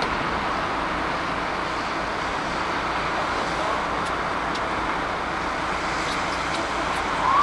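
Steady roar of street traffic. Near the end a faint rising wail starts, like an approaching siren.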